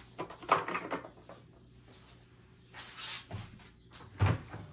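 Clicks and knocks of hand work on a lawn mower's engine, with a short hiss about three seconds in and a heavier thump near the end.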